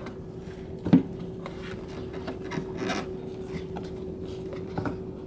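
Rubber fuel-filler surround on a Chevy Lumina being pushed and worked back into place around the filler neck by hand: rubbing and scraping, with one sharp knock about a second in, over a faint steady hum.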